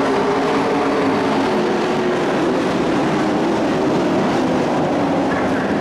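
A pack of dirt-track race trucks' engines running at speed around the oval, a loud, steady drone whose pitch wavers slightly as they go through the turn.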